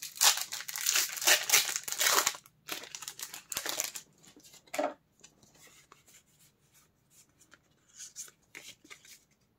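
A Pokémon booster pack's foil wrapper being torn open and crinkled, loudest in the first four seconds, then fainter rustling of the wrapper and cards.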